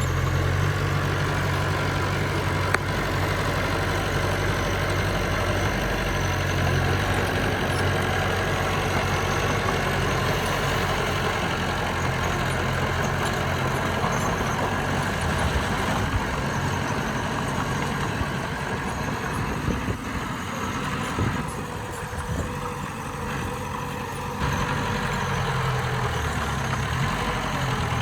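Bulldozer's diesel engine running steadily. Its low engine note drops back about halfway through and comes up again near the end.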